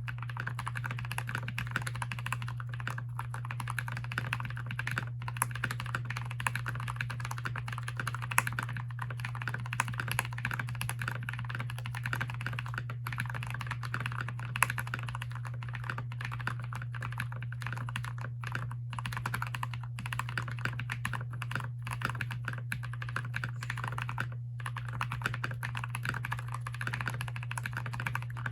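Fast, continuous typing on a Keychron K6 mechanical keyboard with switches lubed with 205g0: a steady stream of keystrokes with a few brief pauses.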